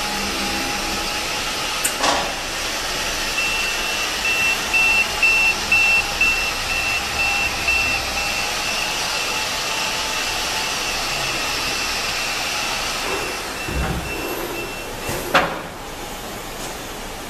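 Warning buzzer of a Phoenix PA-7335 in-floor scissor lift sounding on the lift's final descent after the safety height cutout: high beeps a few seconds in, then a steady tone, over a steady rushing noise. It stops with a sharp clunk as the lift comes down flush with the floor.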